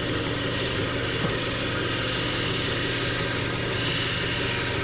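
Electric power saw running steadily with a constant motor hum, making a straight cut through a carved wooden swimbait body.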